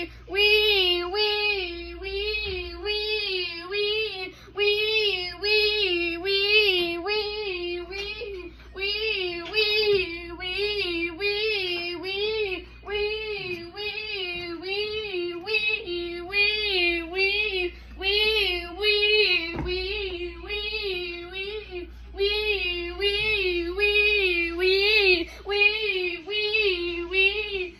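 Electronic fire truck siren yelping, its pitch swinging up and down evenly about twice a second, with brief breaks twice.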